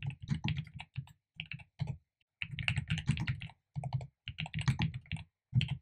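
Typing on a computer keyboard: runs of quick keystrokes with short pauses between them, one longer pause about two seconds in.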